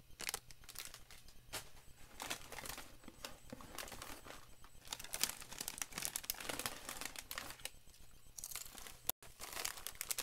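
Plastic snack-chip bags of Popcorners crinkling and rustling as they are handled, a run of irregular crackles.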